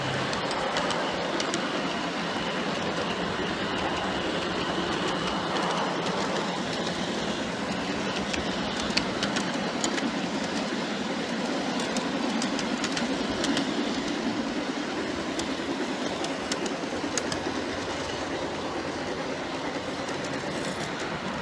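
G-scale model freight cars rolling along garden railway track, heard from aboard the train: a steady rolling rumble with irregular sharp clicks as the wheels pass over rail joints.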